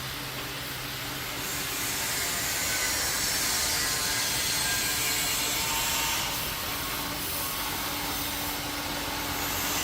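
Toilet paper log bandsaw cutting machine running with a steady mechanical whir and hiss. It grows louder about a second and a half in and eases off a little after about six seconds.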